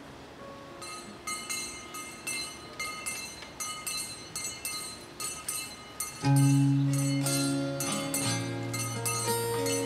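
Brass hand bell rung over and over, about three rings a second. About six seconds in, loud instrumental music starts and the ringing carries on over it.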